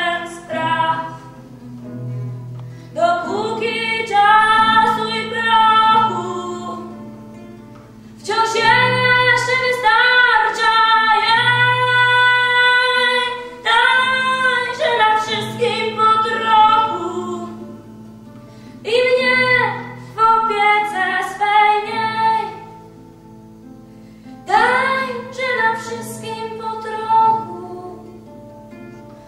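A young girl singing a song while strumming her own classical guitar accompaniment. The song comes in sung phrases of a few seconds, with short gaps where only the guitar is heard.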